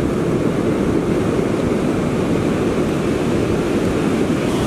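Steady wind rumble buffeting the microphone, mixed with the wash of surf on the beach.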